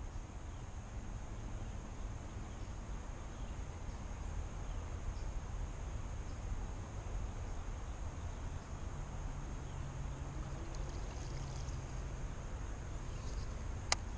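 Outdoor ambience: a steady low rumble with a thin, steady high-pitched insect drone over it, and one sharp click near the end.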